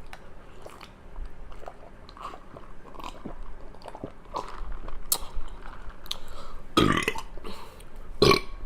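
A person chewing food with small wet mouth clicks, then burping loudly twice near the end, about a second and a half apart.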